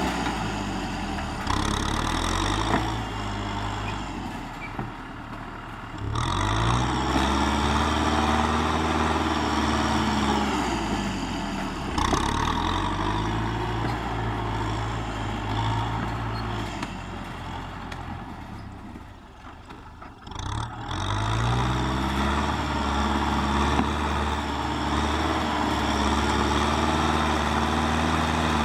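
Kubota M6040SU tractor's diesel engine working while pushing soil, its revs climbing and falling away several times, with a marked drop just before they rise again near the last third.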